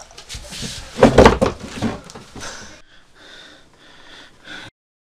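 A brief scuffle between two men: strained breathing and grunting with rustling clothes and knocks, loudest about a second in. It then fades to fainter breathy noise and cuts off short near the end.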